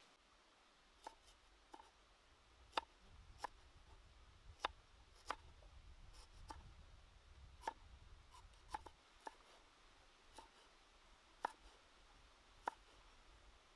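Cleaver slicing on a wooden chopping block: about a dozen sharp knocks of the blade striking the wood, at an uneven pace of roughly one a second.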